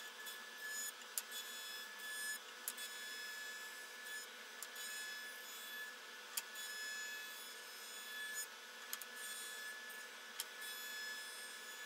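Axminster planer thicknesser running as a surface planer while an oak board is fed slowly across the cutter block, heard faint and thin with no low end: a steady whine with light clicks and knocks from the wood on the bed.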